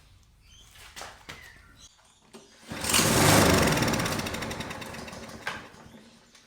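Four-stroke overhead-valve lawn mower engine pull-started on starter fluid sprayed into the carburettor throat: it catches about two and a half seconds in, fires rapidly for a moment and then runs down and dies over about three seconds. It runs only on the starter fluid, the sign of a fuel-supply fault in the carburettor.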